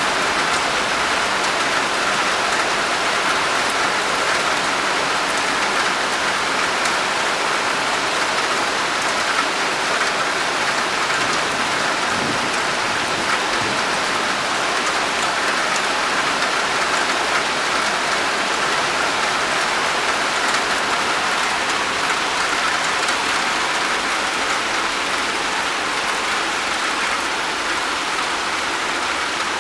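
Heavy rain falling steadily on a wet balcony floor and palm fronds.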